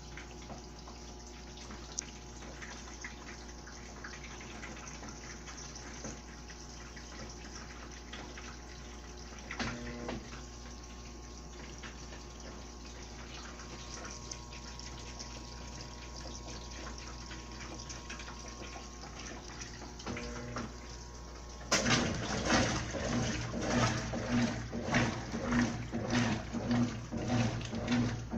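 Consul CWL16A 16 kg top-load washing machine with water running steadily into the tub. About 22 seconds in, a louder churning starts that pulses about twice a second: the agitator swishing the load back and forth.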